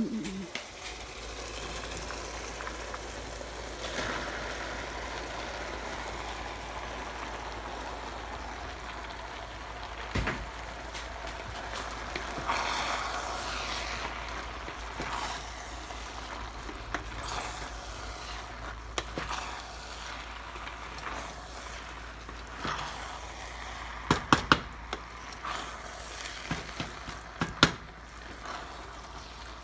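Pot of lentils simmering on the stove: a steady hiss over a low rumble, with scattered sharp clicks and knocks that come thickest in a cluster near the end.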